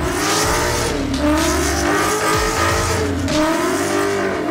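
Red Ford Mustang doing a burnout, its engine revving up and down over and over while the rear tyres squeal and smoke.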